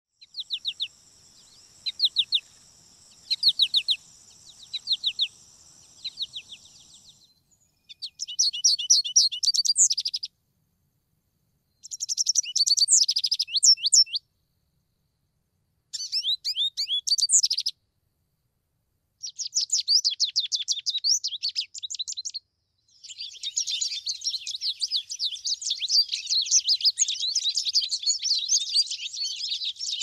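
Recorded American goldfinch calls: several short bursts of quick, high chirps separated by pauses, then a long unbroken run of jumbled chirping and warbling in the last third. A faint steady high tone sits under the first few seconds.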